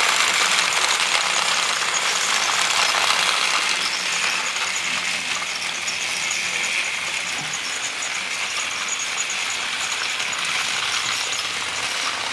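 Two battery-powered Trackmaster Thomas toy trains running on plastic track: a steady rattling whir of their small geared motors, with the wheels clattering over the track.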